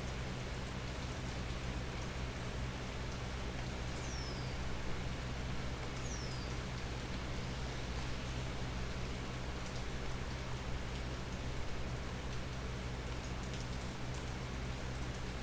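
Steady rain falling through an almond tree's leaves, with scattered drop ticks over a continuous wash. Two brief high whistles fall in pitch about four and six seconds in.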